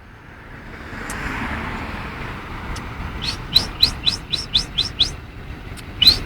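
A man whistling a bird imitation: a quick series of short, sharply rising high chirps, about four a second, starting about three seconds in, pausing and starting again near the end. Before it, a vehicle passes by.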